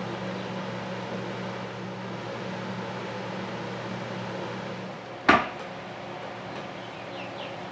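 Steady machine hum with one sharp knock about five seconds in.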